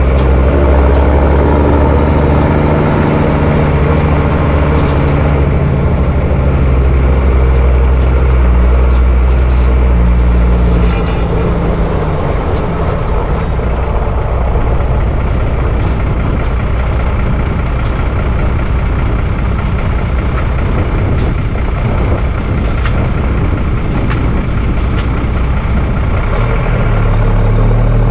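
MAN LE280B 4x4 truck's diesel engine running as the truck is driven, its pitch shifting with engine speed. It eases off about eleven seconds in and pulls harder again near the end.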